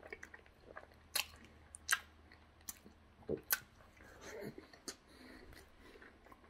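A person chewing a mouthful of soft, sticky cinnamon roll with the mouth open: wet lip smacks and sharp clicks at irregular intervals, about one or two a second.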